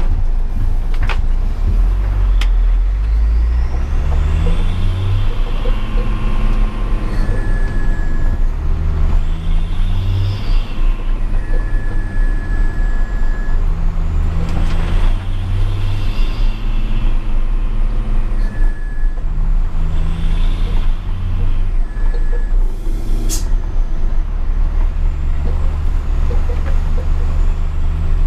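Hino 500 truck's diesel engine with a 'Cung' aftermarket exhaust, pulling through the gears. The engine note climbs and drops back at each shift every few seconds, and a high whistle rises and falls with the revs.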